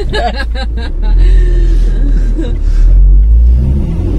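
A car on the move: a loud, steady low rumble of road and engine that swells about a second in, with a voice briefly at the start.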